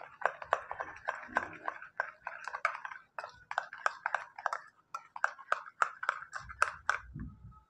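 Metal spoon stirring a watery herbal shampoo mix in a ceramic bowl, clinking against the bowl's sides several times a second; the clinking stops shortly before the end.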